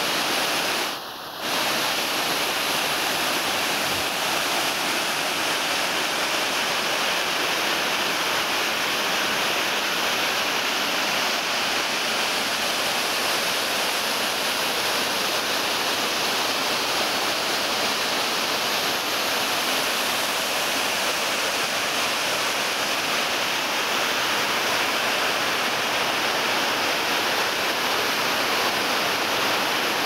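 Waterfall's steady, unbroken rush of falling water, briefly dipping in level about a second in.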